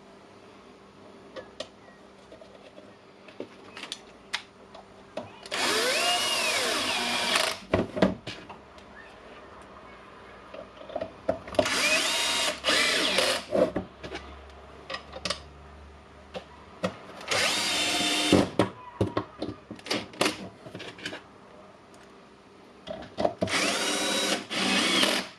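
Cordless drill-driver motor running in four short runs of about two seconds each, its whine rising and falling in pitch with each run, most likely driving home the screws that close the charger housing. Light clicks and handling noises fall between the runs.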